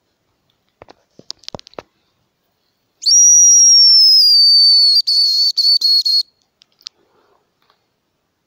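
Homemade brass-tube hazel grouse call blown in one thin, very high whistle. It starts about three seconds in, sinks slightly in pitch and breaks into a few short notes before stopping, imitating a hazel grouse's whistle. A few soft handling clicks come before it.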